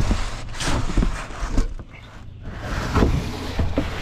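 Cardboard rustling and scraping as a new radiator is slid out of its shipping box, in a string of uneven bursts over a low steady rumble.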